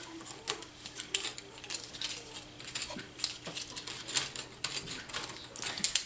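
Wooden craft sticks clicking and clattering against each other and the tabletop as a handful is picked out of a pile, in quick irregular clicks. A faint steady hum runs underneath.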